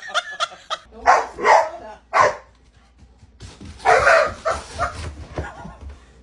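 A dog barking: three short barks in the first seconds, then after a pause another bark and a few shorter ones.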